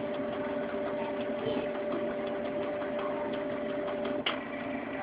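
Ink-tank inkjet printer's internal motor running during its restart after an ink-counter reset, a steady hum with faint regular ticking, cutting off with a click about four seconds in.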